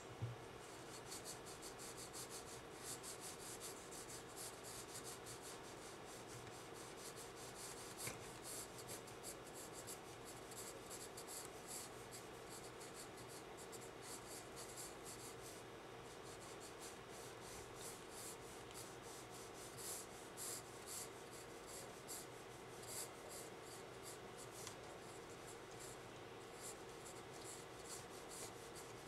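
Graphite pencil scratching across sketchbook paper in many quick, short strokes, with a faint steady hum underneath.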